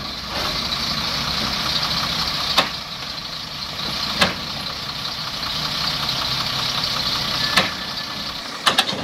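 Heavy truck's diesel engine idling steadily, with three sharp metallic clanks a second or more apart as the tailgate latches at the rear are knocked open.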